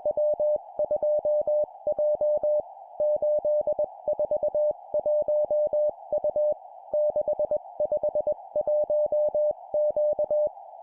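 Morse code (CW) sent at 20 words per minute: one steady tone keyed on and off in dots and dashes, in four-character groups (three numbers and a letter) separated by short pauses, over a narrow band of steady hiss.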